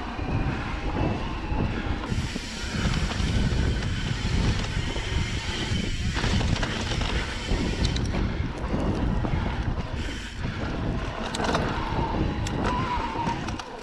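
Wind buffeting the microphone and tyres rolling over a dirt trail on a Santa Cruz Heckler mountain bike, with frequent knocks and rattles as the bike rides over bumps.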